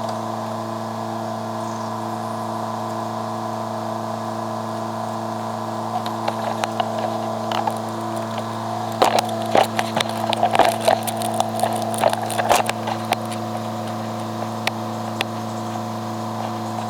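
Engine of a heavy machine running steadily, with a burst of sharp knocks and clanks in the middle.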